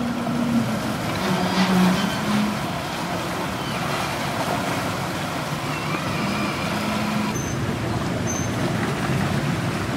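A river ferry's engine running steadily, with water churning at the hull from the propeller wash.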